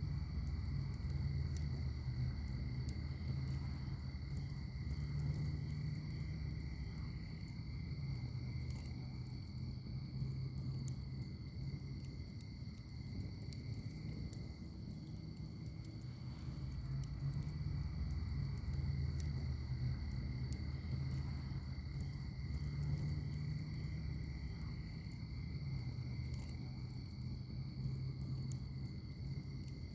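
Wood fire in a fire pit crackling with scattered small pops over a low rumble of the flames, with a steady high chirring of crickets.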